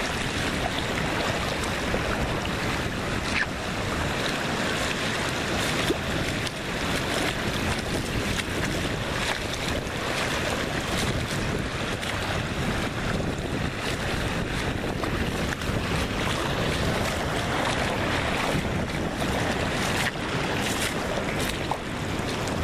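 Steady wind noise on the microphone, with ocean surf washing in behind it.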